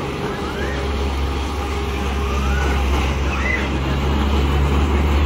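Fairground ride ambience: a steady low machine hum, with a few faint short calls rising in pitch over it.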